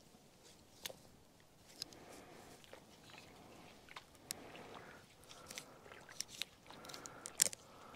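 Faint, scattered clicks and crunches at irregular intervals, coming more often near the end.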